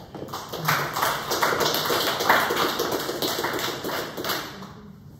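Audience applauding: a room of people clapping, swelling within the first second and dying away in the last second or so.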